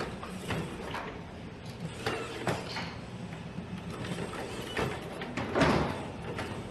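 Boston Dynamics Atlas humanoid robot walking and handling a wooden plank: a series of knocks and thumps from its feet and the plank, the loudest about five and a half seconds in, over a steady low hum.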